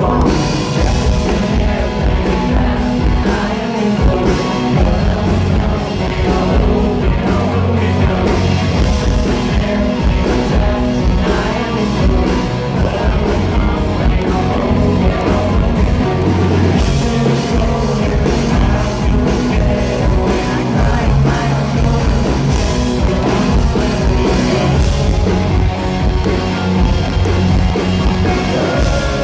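Live rock band playing a song at full volume, with electric guitars, a steady drum beat and a lead singer, heard from among the audience.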